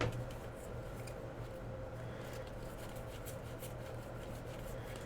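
Faint soft ticks and rustles of trading cards being handled and flipped through a pack, over a steady low hum.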